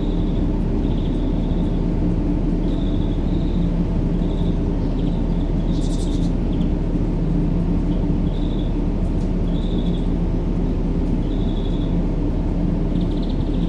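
Steady, deep sleep-noise hiss with its weight in the low range and a faint steady hum, continuous for baby sleep. Over it come short high bird chirps every second or so.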